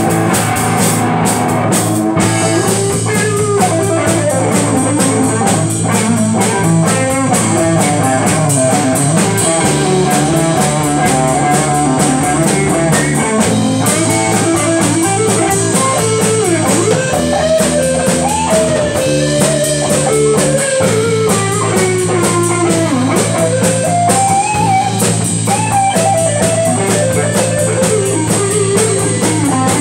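A live blues-rock band playing an instrumental passage: a lead electric guitar plays a melody with bent notes over a walking bass line and a drum kit.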